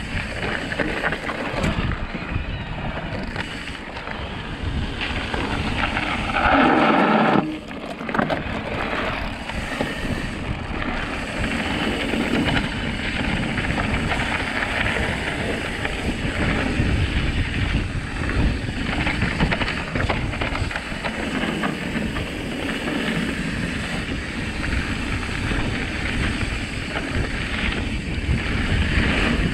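Wind buffeting the microphone and tyres rumbling over a dirt trail while riding an electric mountain bike downhill. About a quarter of the way in comes a louder, pitched sound lasting about a second.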